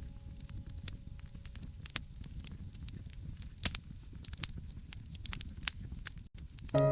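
Fireplace fire crackling: irregular sharp pops and snaps over a low, steady rumble of the flames. Just before the end the sound drops out for an instant and a piano chord comes in.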